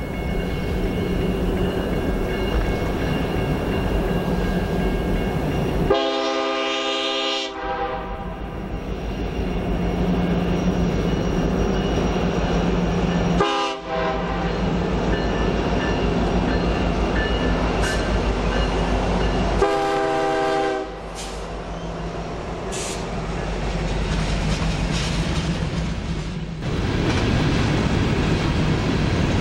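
Norfolk Southern freight train led by EMD SD70ACe diesel locomotives passing, its air horn sounding three blasts: a long one about six seconds in, a short one, then another long one. The locomotives' diesel rumble runs under the horn, and near the end the freight cars roll by with wheels clacking over the rail joints.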